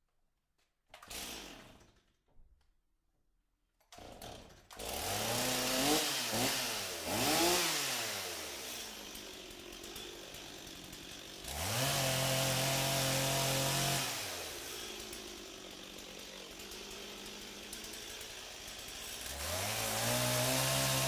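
Chainsaw engine starting about four seconds in after a couple of short noises, then revved up and down: two quick blips, a high rev held for about two seconds, a drop back to a lower steady run, and revving up again near the end.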